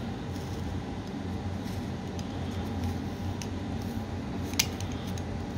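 Box cutter slicing the seal sticker on a phone box: faint scraping and small clicks, with one sharp click about four and a half seconds in, over a steady low hum.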